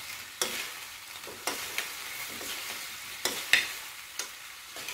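Chicken in a thick chili sauce sizzling gently in a metal pan on a low flame while a metal spoon stirs it, scraping and clinking against the pan several times, the sharpest clink about three and a half seconds in.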